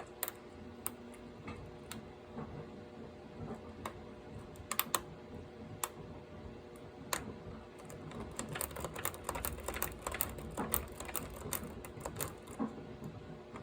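Hook pick and tension wrench clicking and scraping in a pin-tumbler lock as the pins are lifted. The light, sharp clicks are scattered at first and come thick and fast after about eight seconds.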